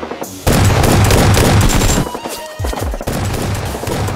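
Rapid automatic gunfire sound effects in two long bursts, starting about half a second in with a brief break near the middle, over background music.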